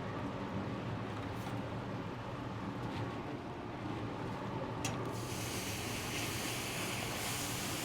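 Outdoor flat-top gas griddle running with a steady low hum while food sizzles under a dome. Just after five seconds in there is a short click, and the sizzling hiss turns brighter and louder and stays that way.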